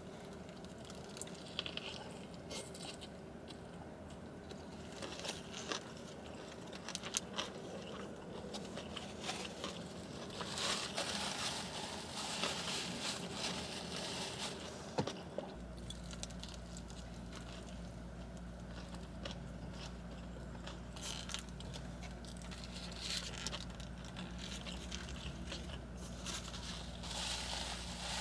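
Close-up eating sounds of a cheeseburger being bitten and chewed: irregular soft crunches and mouth clicks. About halfway through, a low steady hum starts underneath and carries on.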